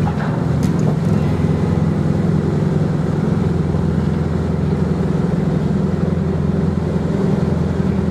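Car ferry's engines running under way with a steady low drone.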